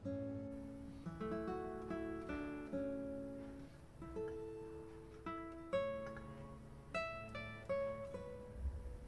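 Background music: acoustic guitar picking single notes and chords, each note ringing and fading.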